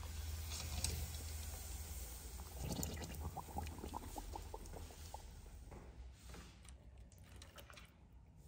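Liquid sounds from a skewered chicken in a pot of water, with a quick run of small bubbling plops a few seconds in.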